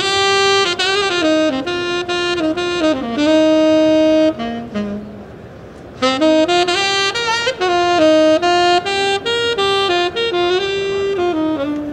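Solo tenor saxophone playing a melodic jazz-style line in two phrases, with a short break about four and a half seconds in. It is heard with the Constellation active acoustic system switched off, in the booth's own dry acoustics.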